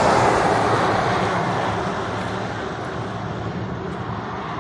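A truck passing close by and driving away, its engine and tyre noise loud at first, then fading over the first two seconds to a low, steady road hum.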